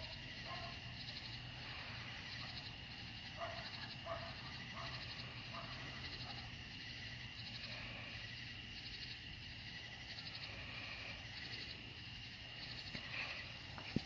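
Night insects chirping in an even rhythm, about three chirps every two seconds, over a steady high trill. A few faint short animal calls come in the first five seconds.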